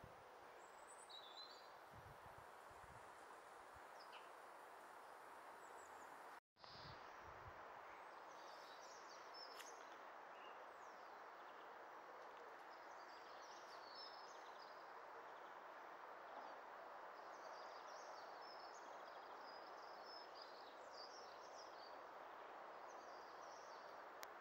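Very quiet ambience: a faint steady background hiss with faint, scattered bird chirps, most of them after the first third. The sound cuts out for a moment about a quarter of the way in.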